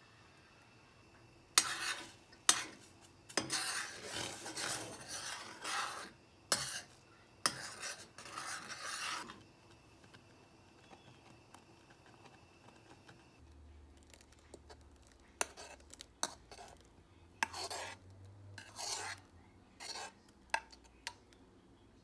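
A metal spoon stirring and scraping in a stainless steel saucepan of oatmeal: rasping strokes with sharp clinks against the pot. The strokes come thick for the first several seconds, then give way to scattered clinks and short scrapes.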